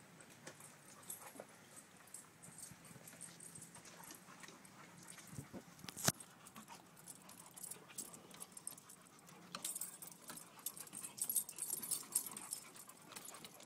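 Dogs play-wrestling on a wooden deck: scuffling, with claws and collar tags clicking. There is a sharp knock about six seconds in, and the clicking gets busier near the end.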